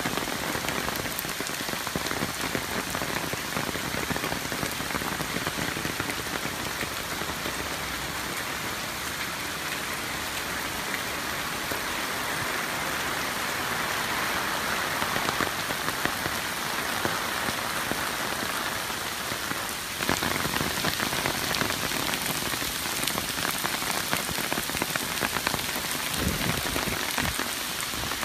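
Heavy typhoon rain pouring steadily onto a wet paved street, a dense, even hiss of drops.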